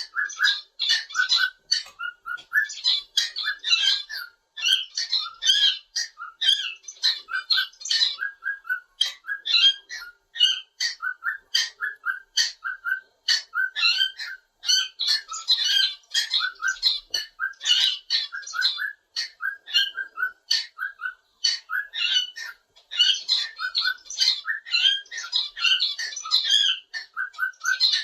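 Pet cockatiel singing and chattering: a quick, near-continuous run of short chirps and whistled notes, broken only by brief pauses.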